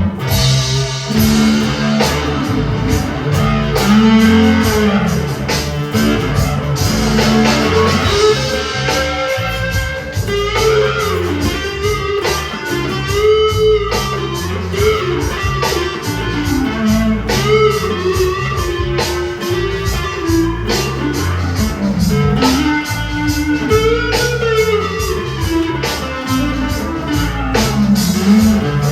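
Electric guitar, a Squier Stratocaster through a Big Muff fuzz pedal and reverb into a Fender Champion 20W amp, playing a bluesy rock lead with bent, sliding notes over a bass and drum backing.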